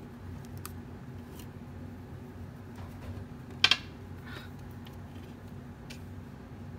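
Steady low hum with a few faint clicks; about three and a half seconds in, one sharp, loud double click.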